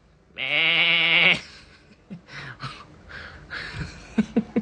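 One loud, wavering bleat-like animal call lasting about a second, followed by fainter scuffling sounds and a few short sharp pips near the end.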